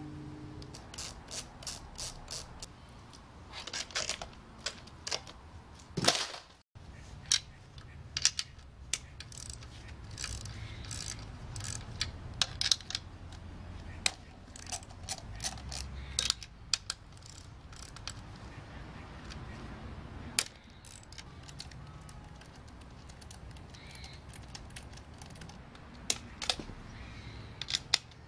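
Scattered sharp clicks and clacks of hard plastic covers and metal parts being handled while a Nissan Leaf battery pack is taken apart, busiest in the first half and sparser near the end.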